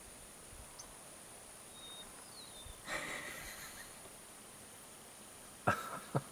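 Greater roadrunner dust-bathing: a brief rustle of wings and scattering grit about three seconds in. Two sharp knocks near the end are the loudest sound.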